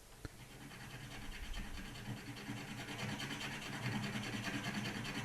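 Rapid, continuous scraping of a tool against plaster, taking down a raised bump so the patch sits flat. It starts faint and grows louder after about two seconds.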